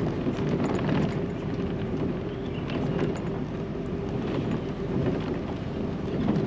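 Rumbling road and wind noise from riding in the open bed of a pickup truck on a dirt road, with scattered small ticks and rattles.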